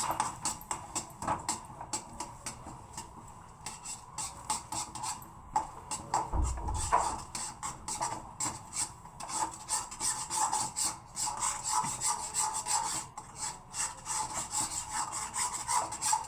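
Besan halwa being stirred in a kadhai, the utensil scraping round the pan in quick, repeated strokes as the mixture cooks down until the ghee separates. A single low thump about six seconds in.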